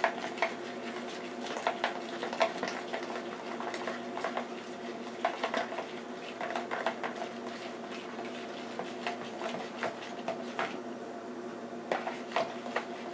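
Metal spoon stirring barbecue sauce in a plastic bowl: irregular clinks and scrapes of the spoon against the bowl, over a steady faint hum.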